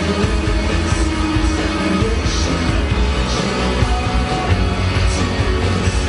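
A rock band playing live: electric guitars over a drum kit, loud and continuous.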